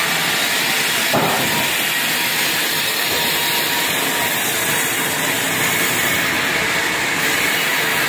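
Steady din of sawmill machinery running: saws and their motors giving an even, continuous noise. A short tone about a second in.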